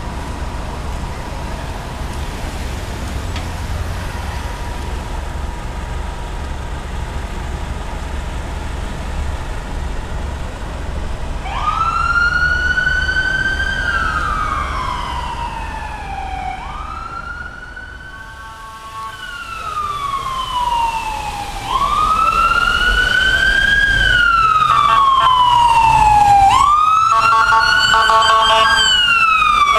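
Emergency vehicle sirens on wail: each note climbs quickly and then falls slowly, repeating about every five seconds, starting about twelve seconds in. Before that there is only a low steady rumble of vehicles. Near the end a second, pulsing siren sounds over the wail.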